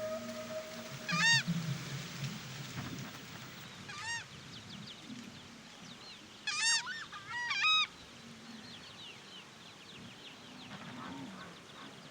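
Southern screamers (tachã) giving loud, goose-like honking calls, one at a time, about four times, with a double call near the middle. Fainter calls from the flock run underneath.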